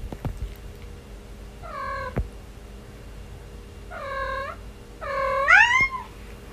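Domestic cat meowing three times. The third meow is the longest and loudest, rising and then falling in pitch.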